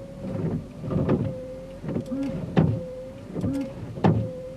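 Windshield wipers running on their motor, with a loud bang about every second and a half, three times, as each sweep carries the end of a blade into the side of the vehicle. The cause is wiper blades fitted on the wrong sides: the longer 24-inch blade is on the passenger side, where it is too long and hangs off the edge of the windshield.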